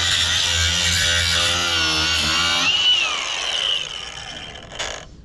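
Cordless angle grinder grinding steel at a boom pivot pin. About three seconds in, the disc comes off the work and its whine rises, then falls as the grinder winds down. A short clack comes near the end.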